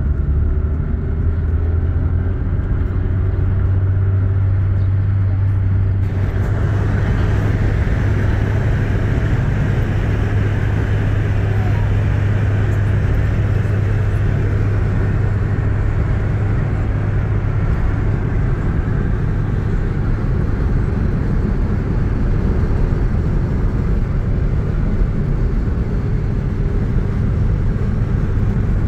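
A car driving, heard as a steady engine and road-noise drone, with more hiss coming in about six seconds in.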